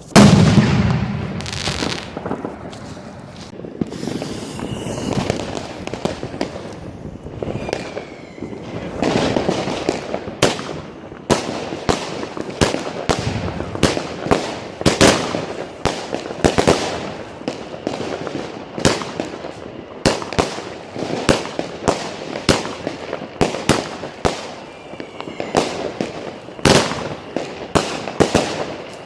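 A Weco 'Tiger and Dragon' consumer fireworks cake firing its shots in quick succession, about one to two a second, with crackling between the bangs. The first shot is the loudest.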